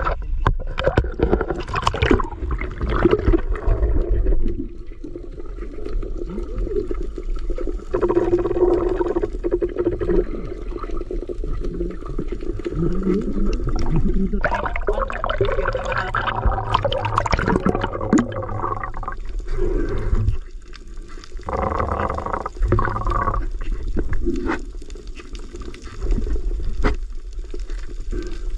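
Water sloshing and bubbling, much of it heard through a camera held underwater, so it sounds muffled and rumbling as swimmers move around it.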